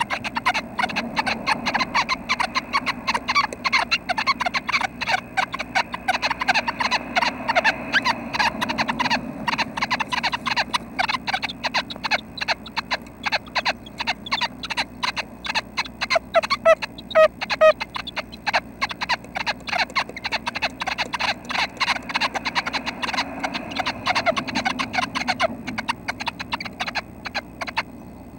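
Red-breasted nuthatch nestlings calling inside the nest box: a rapid, continuous run of short clicking notes, several per second, that thins out near the end.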